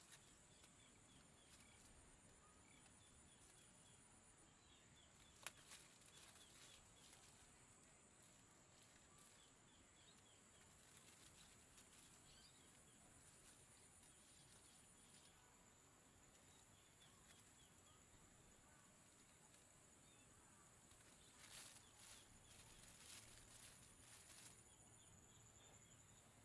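Near silence: faint outdoor background with a steady high-pitched hum and scattered faint chirps, and one sharp click about five seconds in.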